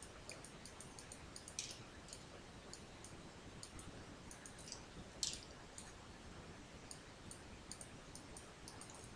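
Faint room tone with two sharp clicks, about one and a half and five seconds in, over a faint, quick, high ticking.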